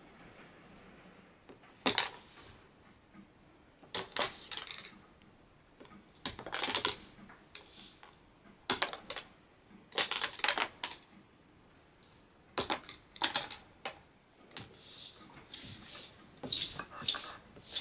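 A tissue-box lid clattering and scraping on a wooden tabletop in short bursts of sharp clicks and taps every second or two, more often near the end, as a hand flicks it about and a cat swats at it.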